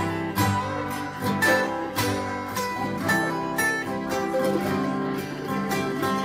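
Three acoustic guitars and a mandolin playing an instrumental passage together: strummed chords with picked notes ringing over them, and no singing.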